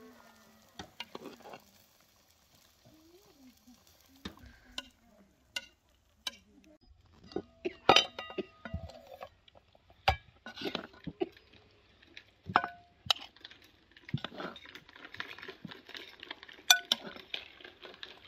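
Metal spoon stirring and scraping in a heavy metal pot of meat stew, with scattered sharp clinks against the pot's side, a few of them ringing briefly.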